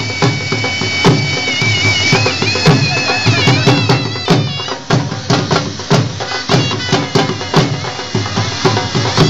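Traditional wedding band music: a wind instrument plays a long held note that turns into a wavering melody, over steady drum beats.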